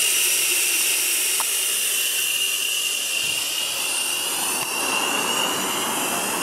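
Small coal-fired garden-gauge steam locomotive being raised to steam: a steady hiss with a thin, high whine that wavers slightly in pitch.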